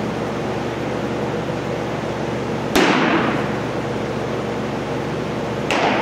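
Two sharp, echoing smacks of baseballs hitting home, about three seconds apart, ringing out in a large hall over a steady background hum.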